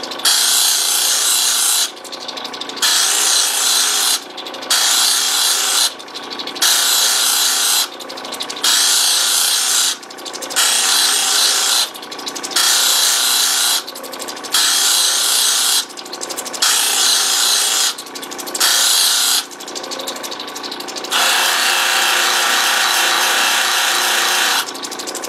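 An opal held against a spinning fine polishing wheel on a lapidary machine, in repeated passes: about ten hissing strokes of a second and a half each, with short breaks as the stone is lifted off, then one longer pass of about three and a half seconds near the end. A steady hum from the machine runs underneath.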